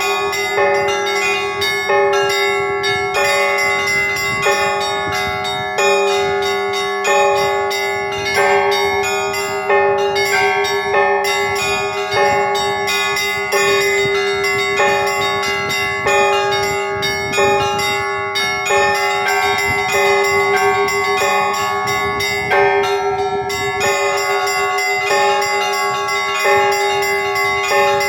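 Church bells ringing: several bells of different pitches struck in a steady run, a fresh stroke about once a second, over a deep bell's lingering hum.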